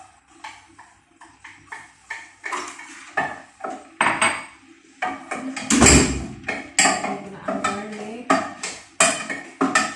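Spoon stirring and knocking against a cooking pot on the stove: a run of irregular clatters and taps, busier in the second half and loudest about six seconds in.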